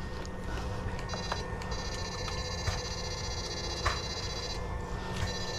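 High electronic whine of several steady tones together, typical of an electrofishing unit's inverter while it is switched on. It starts about a second in, cuts out briefly near the end and comes back, with a few faint clicks under it.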